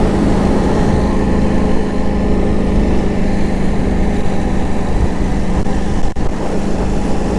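KTM 890 Adventure R's parallel-twin engine running steadily at cruising speed, over a haze of wind and road noise. There is a brief drop in level about six seconds in.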